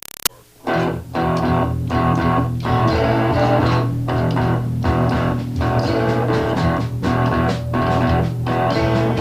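Rock music, an instrumental intro: electric guitar over bass and drums with a steady beat, starting under a second in after a short gap.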